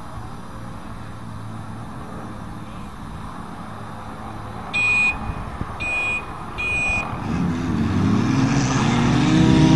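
Several car engines idling at a race start line, then three short high-pitched beeps about a second apart around the middle. Near the end the engines rev up and grow louder as the cars launch off the line.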